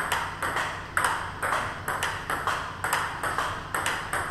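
Table tennis rally: the celluloid-type ball clicks sharply off the rackets and bounces on the table about every half second. One racket is faced with a DHS Hurricane 8-80 rubber being tried for the first time.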